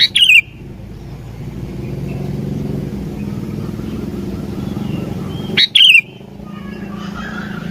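Sooty-headed bulbul (kutilang) calling in two short, loud bursts, one right at the start and one about six seconds in. Each is a quick run of notes falling in pitch, over a steady low hum.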